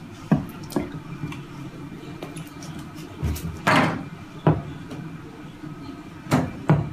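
A handful of short, irregular knocks and thumps, about six in all, one louder and longer near the middle.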